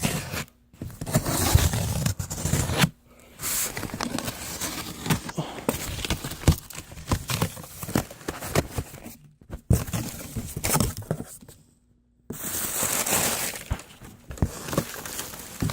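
Packaging being handled and rummaged through while a box is unpacked: rustling, scraping and crinkling with many small clicks and knocks, broken by a few short silences.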